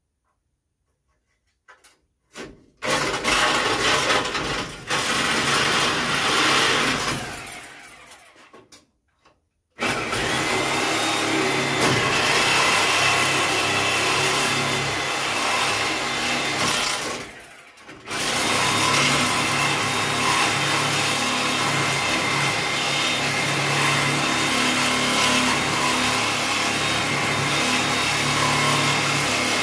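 Handheld power tool working on the bare metal of a stripped Scout 800's front frame, with a steady whine under a harsh rubbing noise. It starts a few seconds in, runs briefly and winds down, then starts again about ten seconds in and runs on with one short dip a little past halfway.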